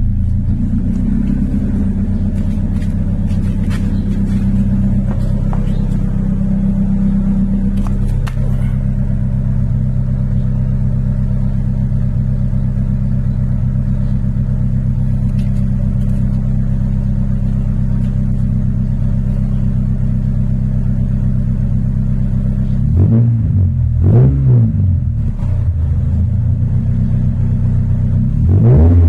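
Honda Civic exhaust with the resonator deleted, engine idling steadily, then revved in a few quick throttle blips late on and again at the very end.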